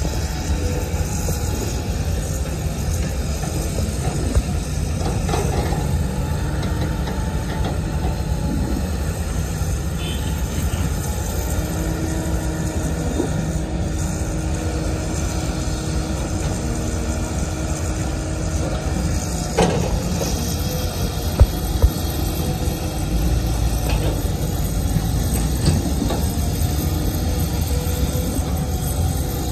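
Cat 323GC hydraulic excavator working, its diesel engine running steadily. A steady tone holds for several seconds in the middle, and a few sharp knocks come about two-thirds of the way through.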